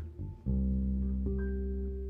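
Instrumental band music: after a brief gap, a deep electric bass note and a sustained keyboard chord come in about half a second in, with a higher held note added partway through.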